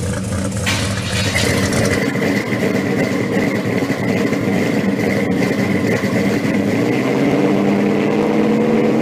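A car engine running, with a steady high whine over it; the sound changes abruptly about a second in, and the engine note climbs near the end as it revs.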